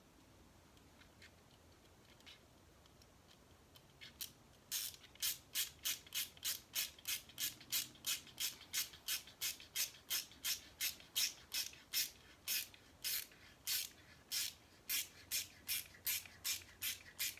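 Small screws being driven by hand into the plastic parts of an RC crawler chassis: a short rasping stroke with each twist of the driver, about two or three a second, starting about five seconds in after a few faint ticks.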